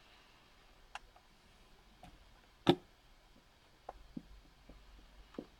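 A few sharp, irregularly spaced clicks from a computer mouse, the loudest about two and a half seconds in, over faint room noise.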